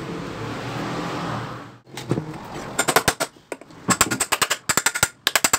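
A steady hum that cuts off about two seconds in, then quick bursts of sharp taps or knocks, many a second, in short runs with brief gaps between them.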